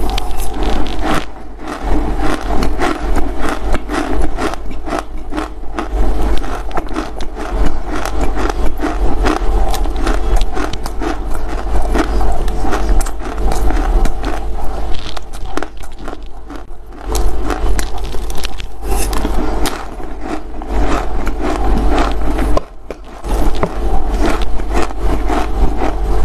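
Close-miked crunching and chewing of dry loess clay: dense, crackly crunches with a few brief lulls, over a steady low hum.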